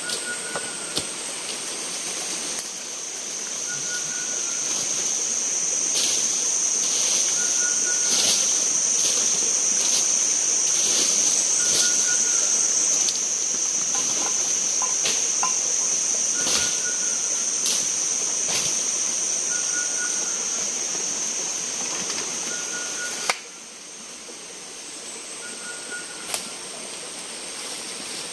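Tropical forest insects droning: a steady, high-pitched whine that swells in a few seconds in and cuts off suddenly near the end. A short call repeats about every two seconds throughout, with scattered clicks.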